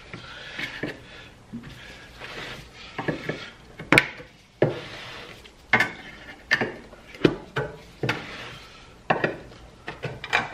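Screwdriver prying the lid off a metal gallon paint can, worked around the rim: about a dozen sharp metal clicks and pops, the loudest about four seconds in, with short scraping between them.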